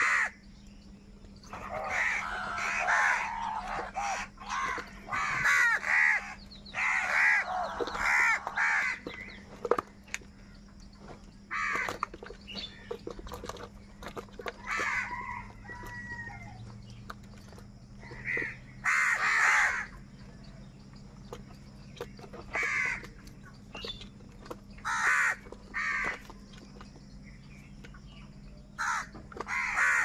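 A flock of house crows cawing as they compete over food. The harsh caws overlap densely for the first several seconds, then come singly or in pairs every few seconds.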